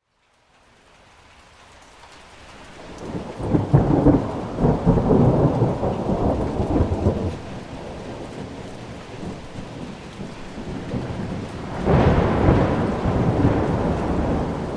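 Thunderstorm: rain and rolling thunder. The sound rises out of silence at the start, a long roll of thunder comes in about three seconds in and rumbles for several seconds, the rain carries on, and a second sharper thunderclap rolls in near the end.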